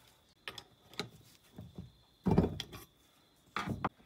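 Screwdriver and hands working the magnet-lined motor housing of a Mini R50/R53 electric power steering pump loose: a series of metallic clicks and knocks, the loudest a heavier clunk a little past halfway, with another clunk near the end.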